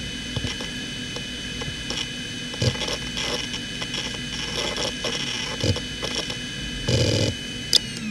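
Toshiba MK1401GRRB 15,000 rpm 2.5-inch SAS hard drive spinning with a steady high whine, its heads seeking in short clattering bursts during file access. A sharp click comes near the end, and at the very end the whine starts to fall in pitch as the drive spins down.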